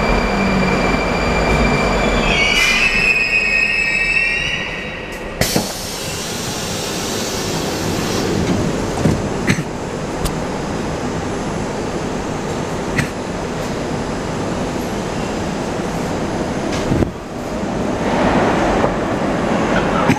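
81-740 Rusich metro train braking into a station: a high whine and squeal of several wavering tones as it slows, ending with a clunk about five seconds in as it comes to a stop. The standing train then gives a steady rumble, with a few sharp clicks.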